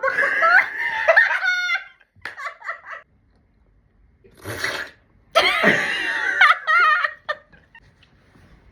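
People laughing and making silly vocal noises with sliding pitch, in three bursts with short pauses between.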